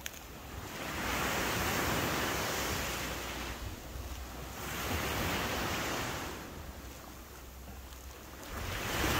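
Surf washing onto a sandy beach, swelling and fading in slow surges about every three and a half seconds: two full surges, and a third building near the end.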